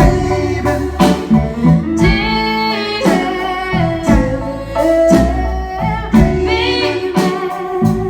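Live band playing a slow, low-key song: a singer draws out long sung lines over guitar, bass and drums, with a drum hit about once a second.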